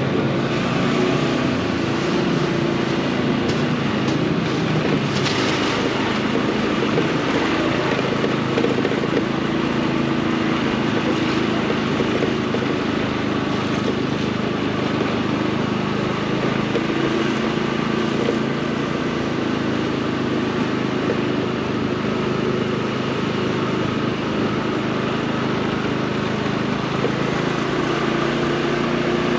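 Motorcycle engine running steadily while being ridden, its pitch wavering a little, over an even hiss.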